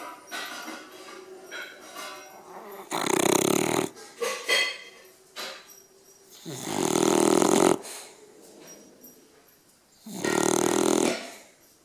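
A beagle snoring: three loud snores, each about a second long and about three and a half seconds apart, with softer breath sounds between them.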